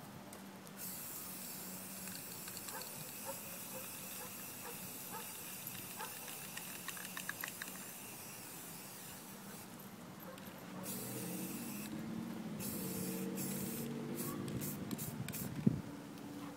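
Aerosol spray-paint can spraying in long hisses with brief pauses, switching to short bursts near the end. A low hum with several tones joins in the second half, and there is one sharp click near the end.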